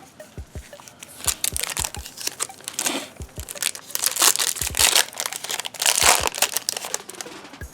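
A Topps Chrome trading card pack's wrapper being torn open and crinkled by hand, in irregular crackly rustles, loudest in the middle, with a few soft handling knocks.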